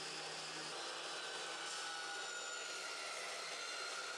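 Evolution dry-cut metal chop saw running and cutting through quarter-inch steel flat bar: a steady whirring hiss with a faint whine. Its carbide-tipped blade cuts cold rather than grinding like an abrasive saw.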